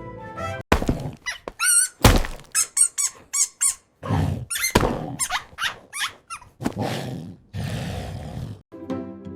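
Cartoon slapstick sound effects: a rapid run of sharp knocks and thuds mixed with high, wavering squeaks, then a hissing noise lasting about two seconds around seven seconds in.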